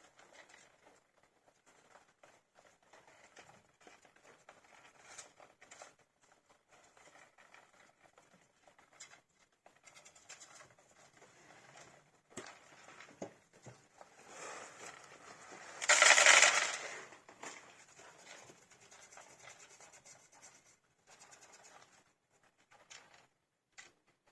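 Baby hamsters scrabbling in their bedding: faint scratching and pattering of tiny claws, with one louder rustle about two-thirds of the way through.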